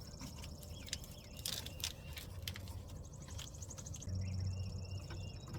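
Small clicks and knocks of hand tools and battery hardware under a car's hood, over a steady low hum that gets louder about four seconds in, with faint high chirps.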